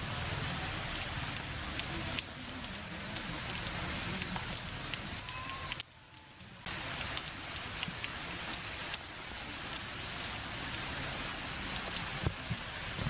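Heavy rain falling steadily on forest leaves and stone, with scattered ticks of single drops; it goes briefly quieter for under a second about six seconds in.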